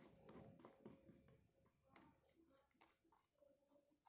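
Near silence, with faint scattered small clicks and rustles, most of them in the first second and again about two seconds in.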